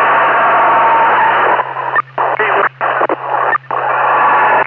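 Police scanner radio channel carrying a loud rush of static and muffled noise over a steady hum. The transmission breaks up and drops out several times in the middle, then comes back.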